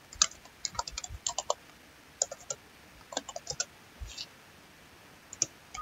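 Computer keyboard being typed on, short keystroke clicks coming in small bursts with brief pauses between them.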